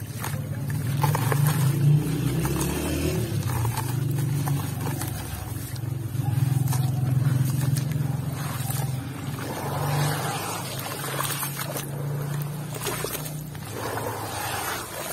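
Hands squeezing and squishing wet red-dirt mud in a plastic basin of muddy water, over a steady low hum.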